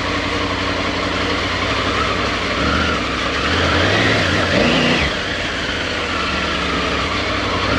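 Motorcycle engine running at low speed, its pitch rising and falling a few times in the middle as the throttle is opened and closed.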